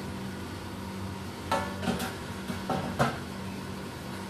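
Aluminium steamer lid being set onto the pot: four metallic clanks with a short ring, between about a second and a half and three seconds in, over a steady low hum.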